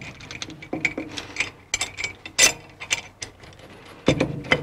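Metal T-bolts clicking and scraping as they are worked by hand into the T-slots of a metal fixture plate on a lathe cross slide. The bolts fit snugly. Irregular clicks run throughout, with a sharper knock about two and a half seconds in and a cluster of louder knocks near the end.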